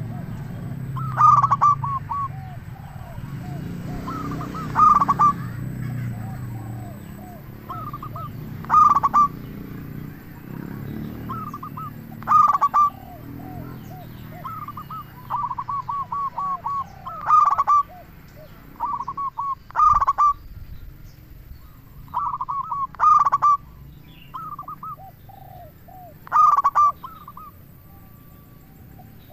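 Male zebra dove (perkutut) singing its rolling, stuttering coo, the loud phrase repeated about every three to four seconds, with fainter, lower coos in between.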